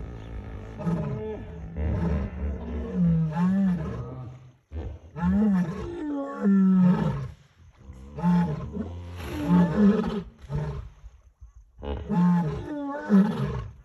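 Lions roaring and hippos calling back in a calling contest: repeated bouts of deep calls with short pauses between them.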